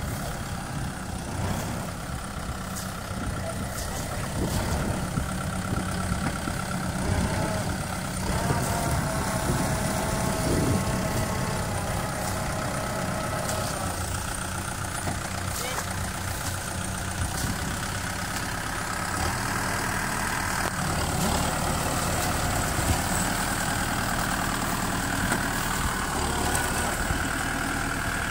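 Kubota tractor's diesel engine running steadily while the tractor sits stuck, its wheels sunk deep in mud.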